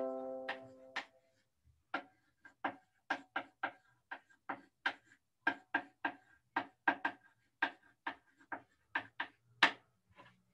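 A bell-like chime dying away within the first second, then a string of short, sharp clicks at an irregular pace of two or three a second.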